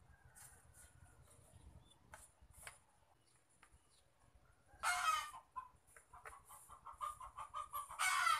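Chickens clucking, with two loud, short squawks about five seconds in and near the end and a run of quick clucks between them. Faint clicks of parts being handled come earlier.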